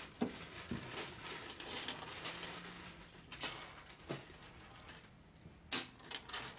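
Small steel screws clicking and rattling as they are handled, picked up and set down on a metal workbench: scattered sharp clicks, the loudest about three-quarters of the way in.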